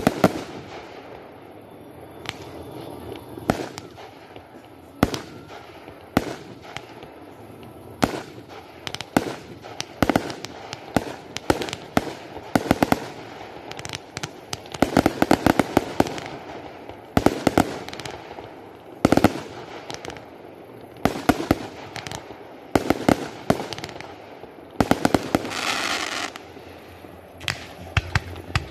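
Fireworks display: aerial shells going off with sharp bangs, some single and some in rapid crackling volleys. Near the end comes a hiss lasting about a second.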